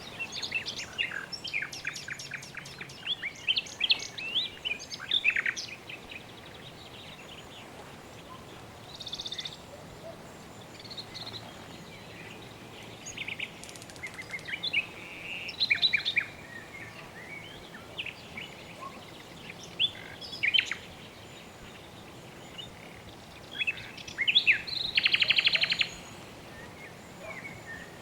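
Birds chirping and calling in short bursts of quick notes over a steady background hiss. A rapid rattling trill stands out about 25 seconds in.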